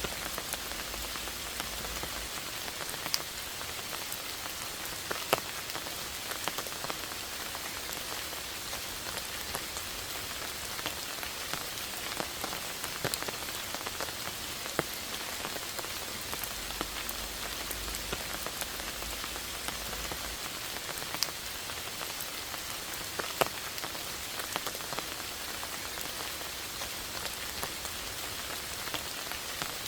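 Steady rain falling, an even hiss with single drops ticking sharply here and there.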